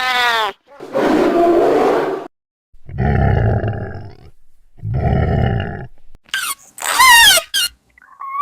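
A run of baby-monster creature sound effects: a short cry rising and falling in pitch, a rasping growl, two low rumbling roars, then high wavering squeaks in the last couple of seconds.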